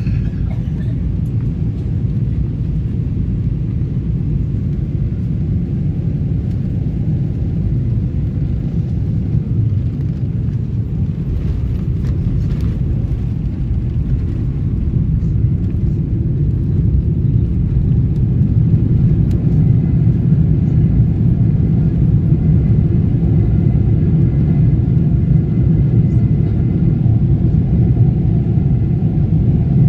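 Steady low rumble of a moving vehicle, growing a little louder about halfway through.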